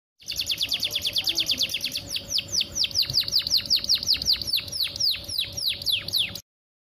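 Domestic canary singing. It opens with a fast trill of about ten notes a second, then moves into slower notes that each sweep downward, about five a second, and cuts off suddenly near the end.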